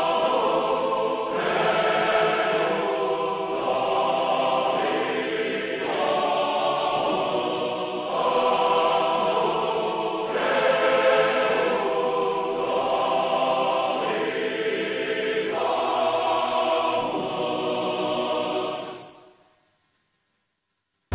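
Choral music: sustained chords that change every second or two, fading out shortly before the end.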